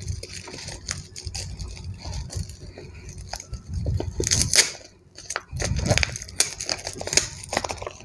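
Paper mailer envelope being handled and turned over in the hands, rustling and crinkling, with a louder rustle about four seconds in.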